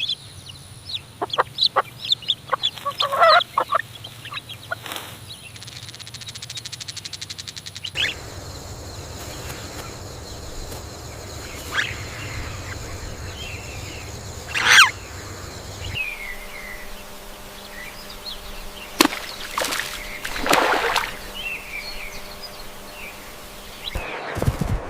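Poultry calling with short, sharp calls and a few sweeping notes, in three separate clips that cut about every eight seconds.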